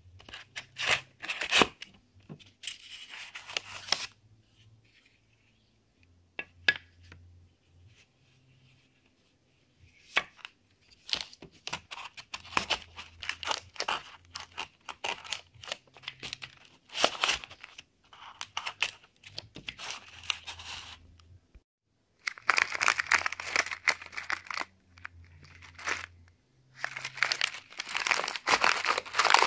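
Crinkling and rustling of plastic packaging bags with scattered sharp clicks, as the plastic parts of a boxed Unimat 1 Classic machine-tool kit are handled in their foam tray. It comes in several bursts with quiet pauses between them.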